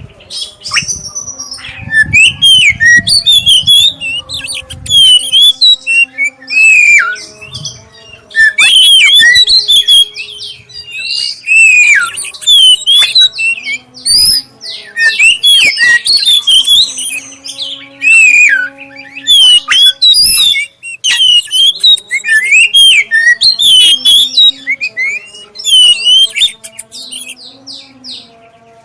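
Oriental magpie-robin (black-breasted kacer) singing a lure song: loud, varied phrases of clear whistles and squawky notes that bend up and down in pitch, in bursts with short pauses. A faint steady hum runs underneath.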